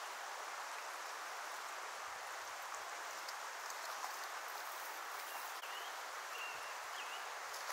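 Steady rushing of a river flowing over rocks, with a few faint short chirps in the second half.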